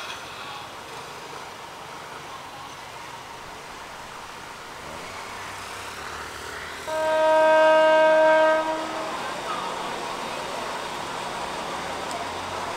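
Diesel train horn sounding one long blast of under two seconds about seven seconds in, as a train approaches a station on the next track, over a steady background of train and engine noise.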